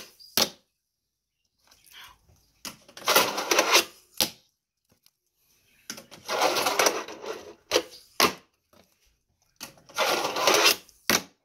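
Fingerboard wheels rolling over a small ramp three times, each run about a second of rolling noise followed by one or two sharp clacks as the board hits the surface.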